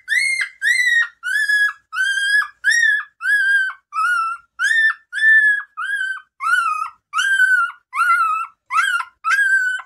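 A newborn Bernese Mountain Dog puppy crying in an unbroken run of short, high-pitched squeals, about two a second.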